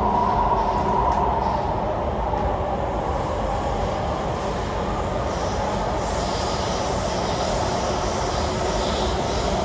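MTR Tuen Ma Line Kinki Sharyo–Kawasaki metro train running along the track with a steady rumble. A whine near the start fades over the first few seconds.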